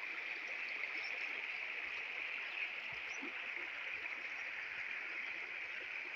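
Shallow stream flowing steadily over rocks and stones, an even, unbroken sound of running water.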